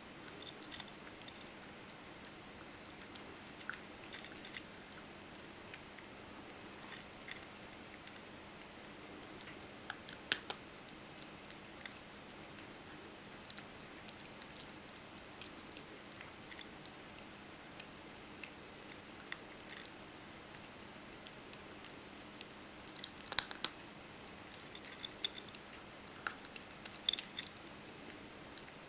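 Ragdoll cat chewing and crunching dry kibble: scattered short crunches with pauses between mouthfuls, and a louder run of sharp crunches and clicks near the end.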